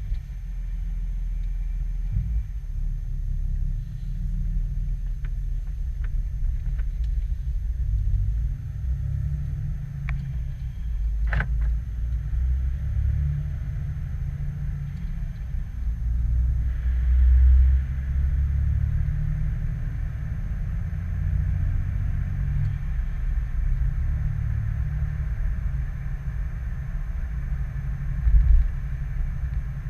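Diesel pickup truck running on the road, a steady low rumble that swells a little twice, with a single sharp click about a third of the way through.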